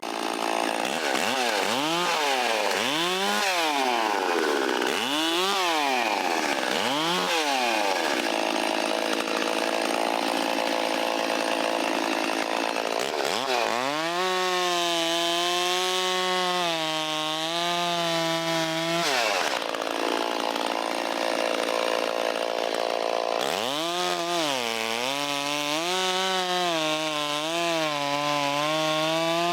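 Stihl 034 two-stroke chainsaw revving and sawing through wood. The engine is blipped up and down four times in the first seven seconds. It then runs at high revs in the cut with a wavering pitch, drops back briefly about twenty seconds in, and revs up again for another cut.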